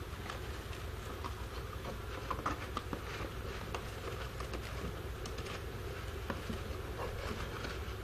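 Light rustling and scattered small clicks of wood-shaving bedding and a cardboard box as a hedgehog shuffles out from under the box, over a steady low hum.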